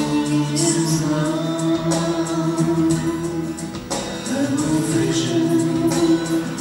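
Vocal music: voices singing long held notes, moving to a new note about four seconds in.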